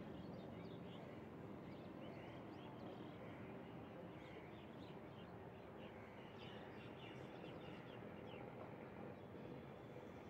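Faint outdoor ambience: many small birds chirping over a steady low background hum.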